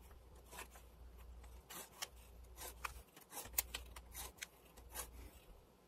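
Pen drawing short dashes along a plastic ruler on paper: a faint, irregular series of quick scratches and light ticks.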